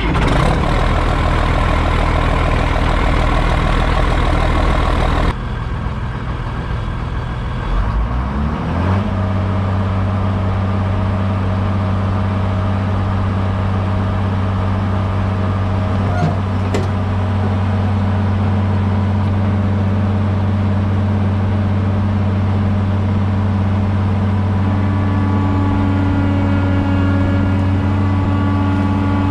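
A heavy vehicle engine running with a sudden change about five seconds in. It speeds up with a rising pitch around eight seconds in, then runs steadily at an even pitch.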